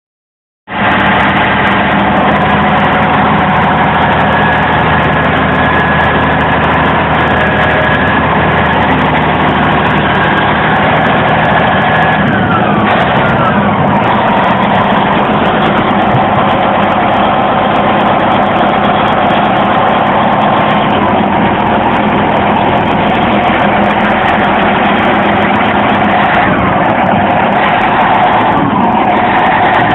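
Diesel engine of a 1979 Caterpillar 980C wheel loader running steadily. About twelve seconds in, a high tone glides downward and the engine note changes, and it shifts again near the end.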